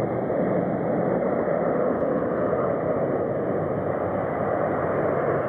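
Steady jet engine noise from a twin-engine Boeing 767 airliner as it flares and touches down on the runway.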